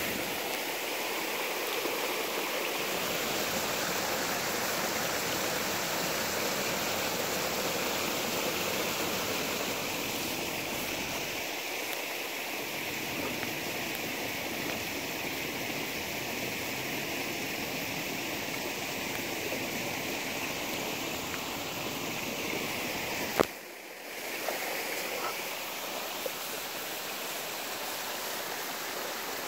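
River water rushing steadily. A single sharp click comes near the end, after which the rushing briefly drops before it resumes.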